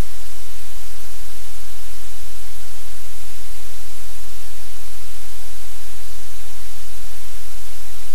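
Loud, steady static hiss with a low hum beneath it, unchanging throughout: electrical noise on the livecam's audio feed.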